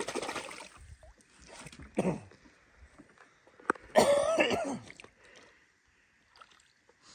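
A man clearing his throat loudly about four seconds in, after a burst of clicking near the start.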